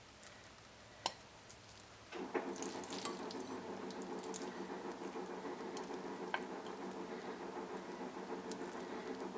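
Faint clicks of a spoon working filling into a bread pocket. About two seconds in, a steady hum starts and runs on, and it is the loudest thing heard.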